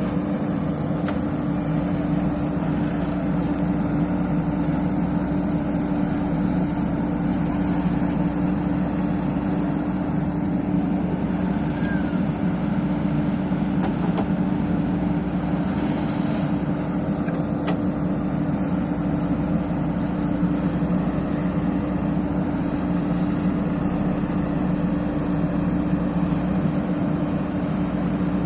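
Backhoe loader's diesel engine running steadily at an even pitch, with a few faint clicks.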